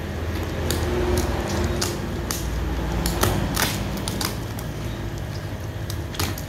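Knife filleting a red stumpnose, the blade worked along the backbone and rib bones with scattered clicks and scrapes, over a steady low hum.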